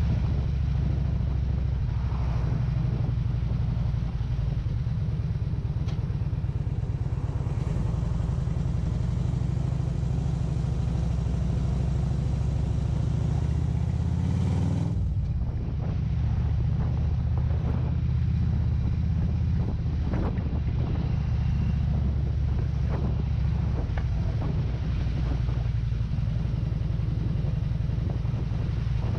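Harley-Davidson touring motorcycle's V-twin engine running as the bike rides at town speed, with a steady low note. The note breaks and changes briefly about halfway through, then carries on.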